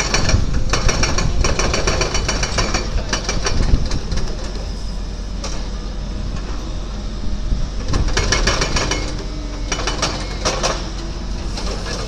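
Kato mobile crane running steadily as it hoists a crate, with two spells of fast mechanical rattling, one at the start and one about two-thirds of the way through.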